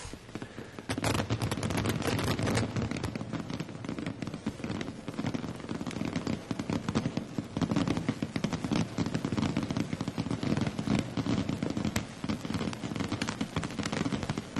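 Fireworks display: a dense, rapid crackle of many small bangs, starting about a second in and going on without a break.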